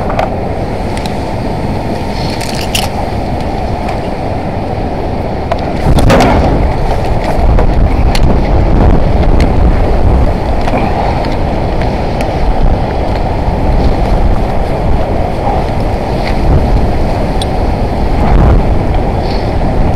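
Wind buffeting the microphone high on a skyscraper roof edge: a loud, steady low rumble that grows louder about six seconds in, with a few brief knocks.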